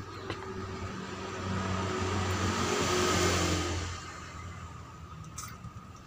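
A motor vehicle passing by: its engine hum and road noise swell to a peak about three seconds in, then drop away about a second later.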